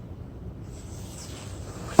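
A scraping hiss that builds for about a second and a half, then a sharp knock at the end.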